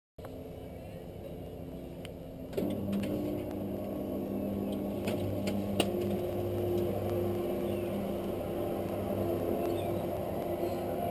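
Roller shutters driven by FAAC tubular motors running, a steady low hum that starts about two and a half seconds in, with a few clicks along the way.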